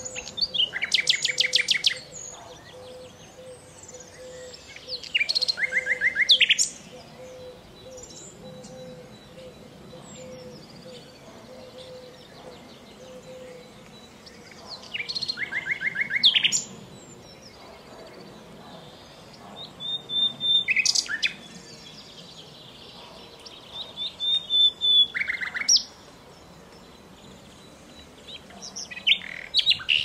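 Common nightingale (Luscinia megarhynchos) singing: about six loud phrases of rapidly repeated notes and clear whistles, each a second or two long, separated by pauses of several seconds.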